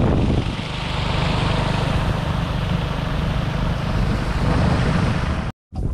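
Small boat's motor running steadily at speed as the boat moves across the water. It cuts off suddenly near the end.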